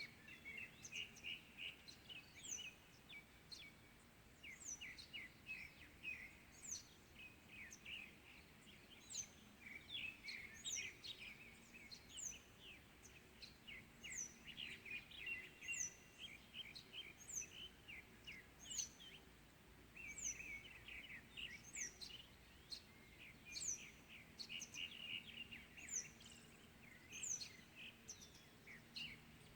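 Several wild birds singing and calling: one repeats a high, thin, downslurred note about every second and a half, over busy, rapid chirping from others, with faint steady background noise.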